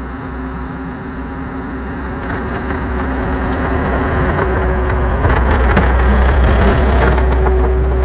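Takeuchi TL10 compact track loader running, its engine a steady low drone that grows louder as the machine comes closer, with rattling clanks in the second half.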